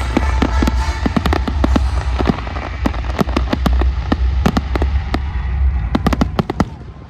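Fireworks display: a rapid, continuous barrage of bangs and crackles over a low rumble. The barrage thins to a few separate bangs near the end.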